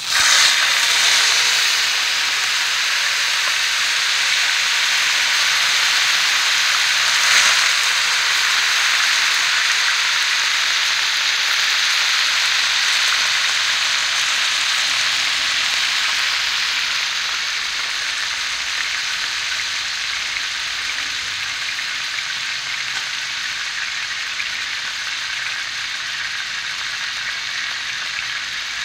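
Whole mullet frying in hot oil: a steady sizzle with one sharper pop about seven seconds in, easing off gradually toward the end.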